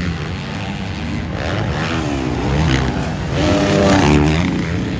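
Motocross dirt bike engines revving up and down on the track, the pitch rising and falling repeatedly with throttle and shifts. The loudest pass comes about three and a half to four and a half seconds in.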